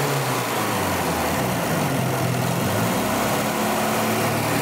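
Lada four-cylinder petrol engine running on fuel fed by a hand-worked diesel high-pressure injection pump; the revs dip about a second in, then rise and hold higher as more fuel is fed.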